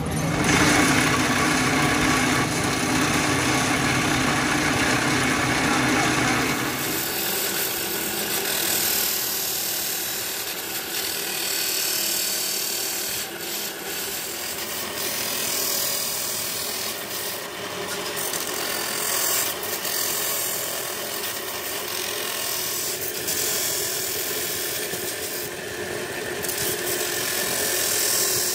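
A steel tractor clutch plate held by hand against an abrasive disc spun by a pillar drill, giving a steady rasping grind of metal on abrasive. The heavier low hum drops away about six seconds in, and the grind goes on.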